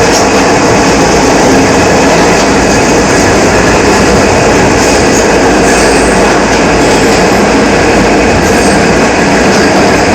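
R68 subway car running at steady speed, heard from inside the car: a loud, steady rush of wheels on rail with the car's howl.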